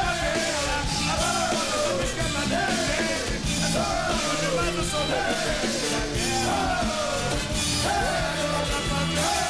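Live pagode band playing: dense samba percussion under a short falling melodic phrase repeated about once a second.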